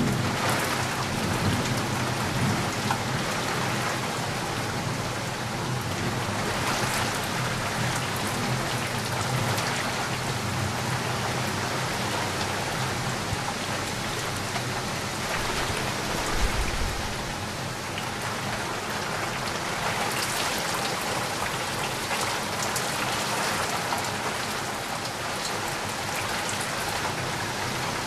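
Steady, heavy rain falling and pattering on surfaces, an even hiss of many drops. A low rumble of thunder dies away in the first couple of seconds.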